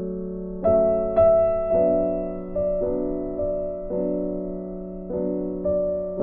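Background music: gentle piano, with a note or chord struck every half second to second and each one left ringing.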